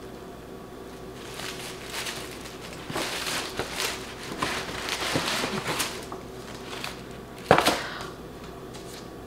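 Paper and tissue paper rustling and crinkling in irregular handfuls as a gift bag is untied and its contents pulled out, with one sharp, louder paper crackle near the end.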